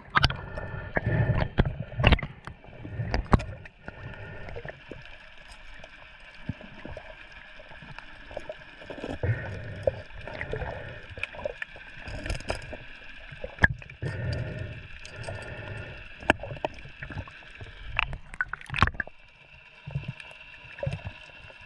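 Seawater sloshing and gurgling in irregular surges, with scattered sharp clicks and knocks.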